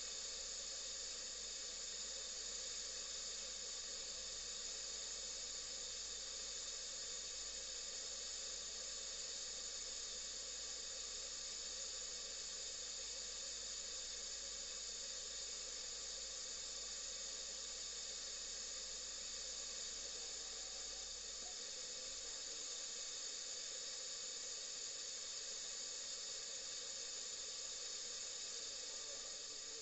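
Steady FM radio static hiss from a homemade receiver with a Sony 1619 tuner IC and a 6283 amplifier board, with no station coming through. A faint low hum underneath cuts out about two-thirds of the way through.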